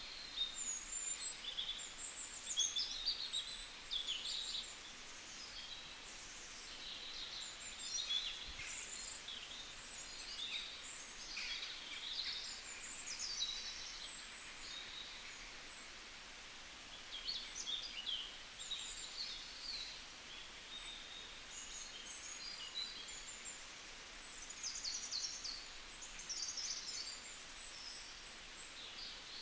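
Several small birds chirping and twittering in quick, high-pitched calls that come in clusters, over a steady background hiss.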